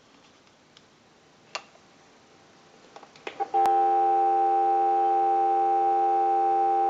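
Telephone dial tone: after a few faint clicks, a steady, continuous tone starts about three and a half seconds in, supplied by the telephone line analyzer and heard through its monitor amplifier.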